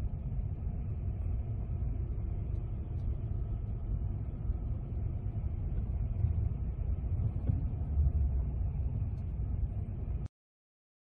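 Steady low rumble of a vehicle driving, heard from inside it, that cuts off abruptly about ten seconds in.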